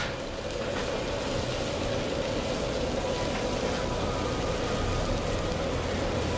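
Steady roar of a gas wok burner, with oysters in their liquid bubbling and sizzling in the wok.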